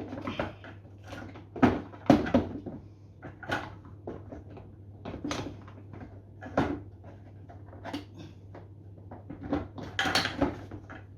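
Hard plastic housing parts of a pressure washer knocking and clicking as they are handled and pushed into place, in irregular sharp knocks over a low steady hum.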